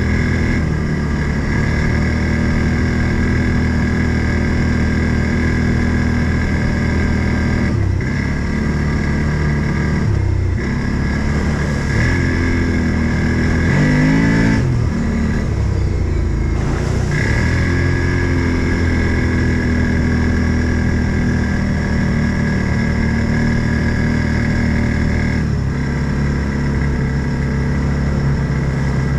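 Engine of an Odes 800 off-road vehicle running steadily under way, its pitch shifting now and then with throttle, and a brief rise and fall in revs about halfway through.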